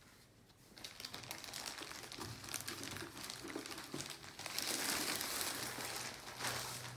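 Clear plastic bag crinkling as a boxed record player sealed inside it is handled and lifted. The crackling is loudest about two thirds of the way through and dies away near the end.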